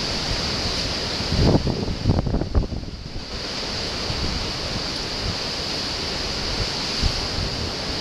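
Heavy storm surf breaking and washing over rocks, a steady roar of water, with strong wind buffeting the microphone in gusts about one and a half to three seconds in.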